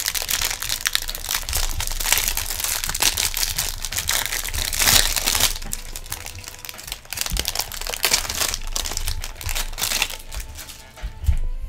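Clear plastic wrapper crinkling and crumpling as gloved hands peel it off a stack of trading cards: a dense crackle, loudest about five seconds in, that thins out near the end.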